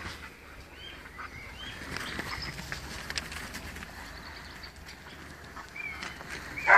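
Young spaniel puppies in play: scattered short high squeaks and yips with light pattering, and a sudden louder yelp right at the end.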